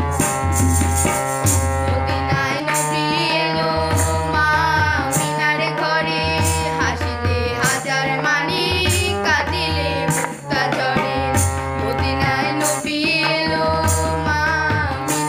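A woman and a boy singing a Bengali folk song together, accompanied by tabla and a steady held instrumental drone. The instrumental runs alone for the first couple of seconds before the voices come in.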